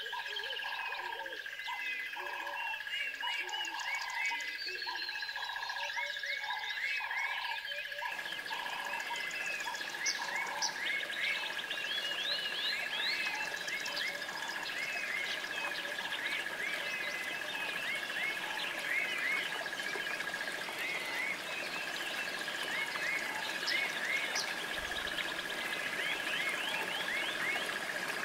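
Wildlife chorus: repeated croaking calls about one and a half a second over a steady high-pitched drone and many short chirps. After about eight seconds the croaks fade into a denser, hissing chorus while the drone and chirps go on.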